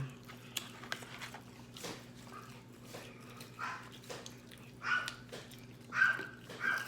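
A dog whining in a few short, high whimpers spaced a second or more apart, the loudest near the end.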